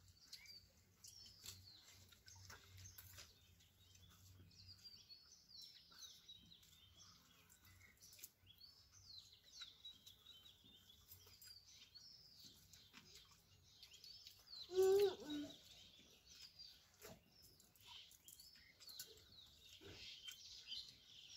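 Faint birds chirping and twittering on and off, with a few soft clicks and one short voice call about fifteen seconds in.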